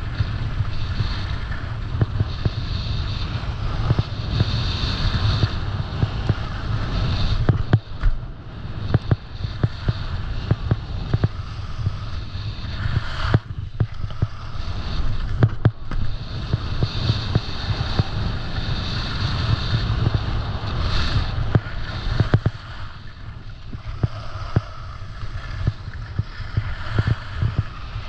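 Skis sliding and scraping over packed, groomed snow, a hiss that swells and fades, with wind buffeting the action camera's microphone as a steady low rumble. Frequent small ticks and knocks run through it.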